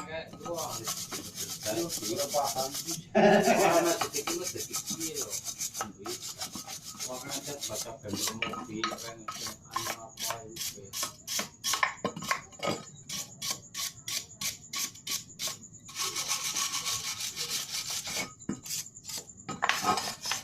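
Scrubbing of a Yamaha Mio scooter's dirty engine parts in quick, repeated rubbing strokes, as black grime is worked off.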